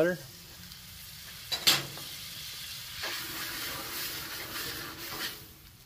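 Butter sizzling on a hot Blackstone griddle's steel top, with a metal spatula knocking once about a second and a half in and then spreading the butter; the sizzle grows louder about halfway through.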